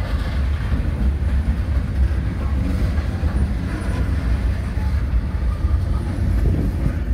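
Freight train of covered hopper cars rolling past, its steel wheels on the rails making a steady rumble.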